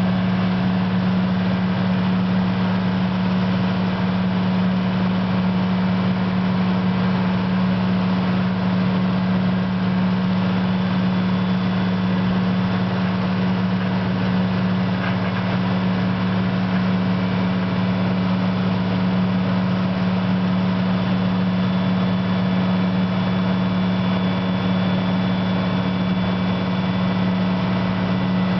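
CAT 315 hydraulic excavator's diesel engine running at a steady speed, a constant low hum that does not change.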